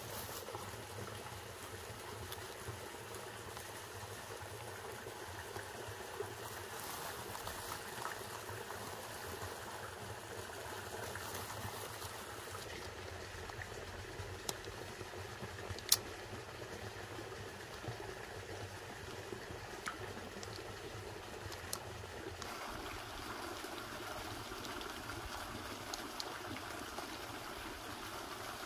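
Steady trickle of running water, with a few sharp clicks and rustles as plastic pesticide sachets are handled and torn open.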